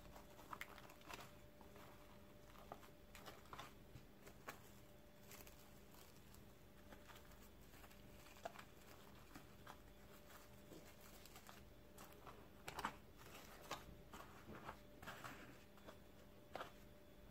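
Faint crinkling and crackling of plastic cling film being stretched and smoothed over a plastic seed tray: scattered small clicks, with a louder cluster about three quarters of the way through. A faint steady hum underneath.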